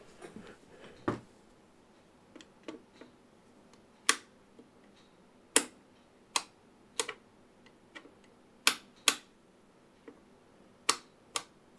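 A screwdriver tip tapping the input terminal of a tube amplifier under test, making a string of sharp metallic clicks at irregular intervals, roughly one or two a second. Beneath them is a faint steady buzz that does not change when the input is touched.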